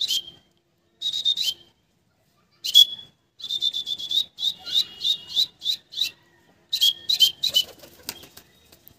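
A person calling a pigeon with runs of short, high squeaky mouth calls, up to about four a second, in bursts with short pauses between. Near the end comes a brief flutter of wings as the white pigeon flies up onto the caller's hand.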